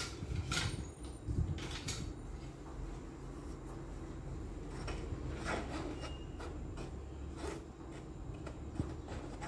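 Flour and spices being sifted through a stainless-steel mesh sieve: a spoon scraping and rubbing the powder through the mesh, with a few sharp knocks of spoon and sieve along the way.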